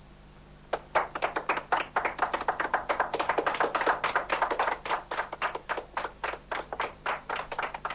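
A small group applauding: many separate hand claps, starting suddenly about three-quarters of a second in and carrying on unevenly.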